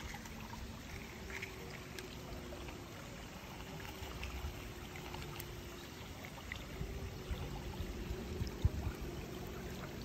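Shallow river running over pebbles: a steady light trickle of water, with a few faint clicks and some soft low knocks near the end.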